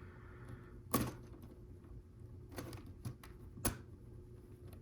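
Lego Technic plastic pieces clicking and knocking as they are handled and fitted together: a few sharp clicks, with a louder one about a second in and another later.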